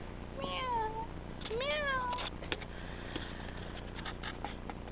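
Tabby kitten meowing twice in quick succession, short calls that bend down in pitch, followed by a few faint clicks.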